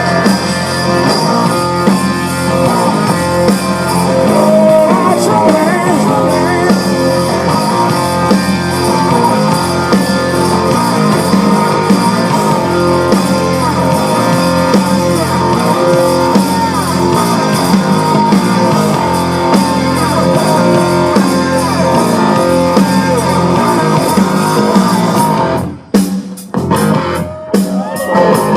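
Live blues-rock band playing an instrumental passage: an electric guitar lead with bending notes over held keyboard chords, bass and drums. About three seconds before the end the full sound breaks off into a series of short, separated band hits.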